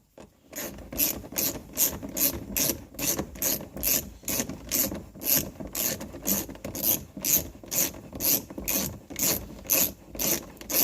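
Hand ratchet wrench worked back and forth in steady, even strokes of rapid pawl clicks, about three a second, turning in a seatbelt anchor bolt.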